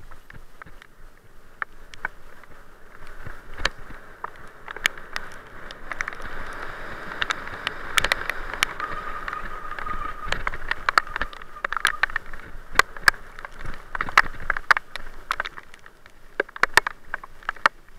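Bicycle riding over a rough dirt-and-gravel forest track: steady tyre and rolling noise with frequent irregular knocks and rattles over the bumps. A brief steady squeal comes about nine seconds in.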